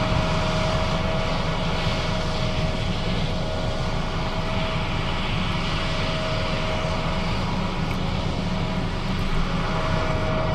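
John Deere S660 combine running steadily while harvesting soybeans: a constant engine drone with a steady machinery whine that fades out for a couple of seconds late on and comes back near the end.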